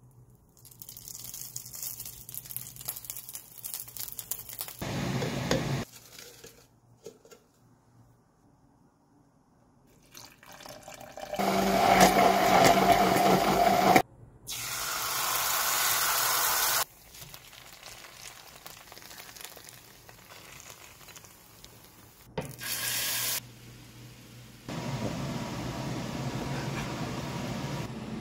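Cooking sounds in short separate takes: food frying in an oiled non-stick pan, and liquid being poured, with quiet gaps between.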